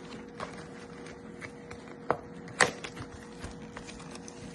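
Handling of a takeaway meal box being unpacked: scattered faint taps and rustles, with two sharper clicks a little after two seconds in, over a faint steady hum.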